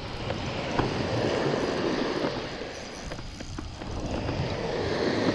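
Spinning reel being cranked steadily as a hooked fish is reeled in, its gears whirring, over surf washing up the beach and wind on the microphone.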